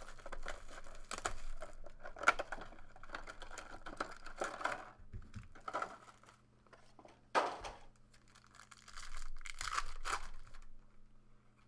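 Crinkling and tearing of plastic shrink-wrap as a sealed trading-card box is unwrapped and opened. Near the end a foil card pack is torn open, with sharp separate rips between quieter gaps.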